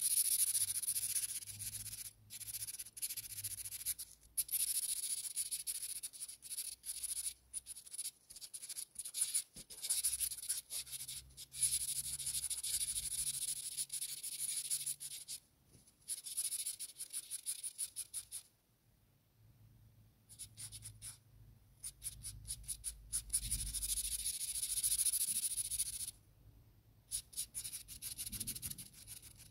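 Felt-tip marker scribbling on paper in rapid back-and-forth strokes, colouring in a filled area. It stops a few times, once for about three seconds past the middle.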